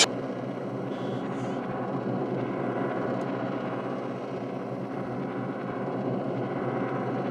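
Steady low droning rumble with held tones underneath: a suspense drone laid under the scene, unbroken throughout.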